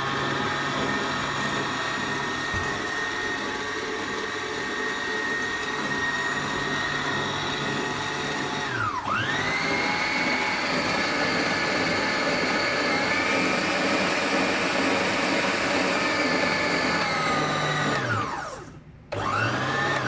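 PerySmith stand mixer's motor running steadily with a high whine. About halfway through it winds down and spins straight back up at a higher pitch, as it is switched to a faster speed. Near the end it winds down, then gives one short burst and stops.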